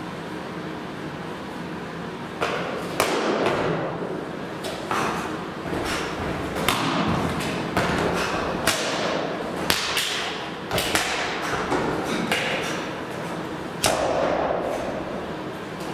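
Sharp stamps, landings and slaps from a changquan (long fist) wushu routine, irregularly spaced and ringing in the gym, with the swish of the loose uniform between them. The strikes begin a couple of seconds in.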